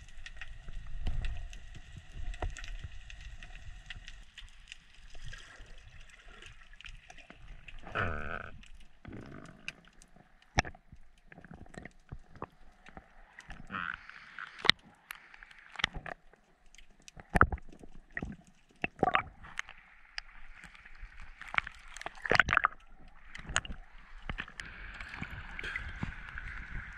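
Underwater sound heard on a diver's camera: water gurgling, scattered sharp clicks and crackles, and a faint steady hum in the first several seconds. Near the end the diver surfaces and water sloshes around the camera.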